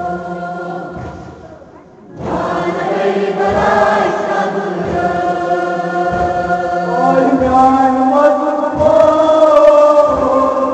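Kashmiri noha, a mourning elegy, chanted in unison by a group of voices. The chant fades briefly about two seconds in, then comes back and carries on.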